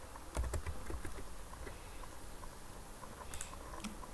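Computer keyboard keystrokes, a quick run of clicks in the first second as the last letters of a name are typed, then a few fainter clicks about three seconds in.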